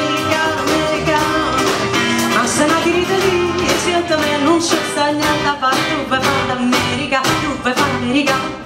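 Live band playing a pop-rock groove: drum kit with cymbals keeping a steady beat under acoustic and electric guitars and bass.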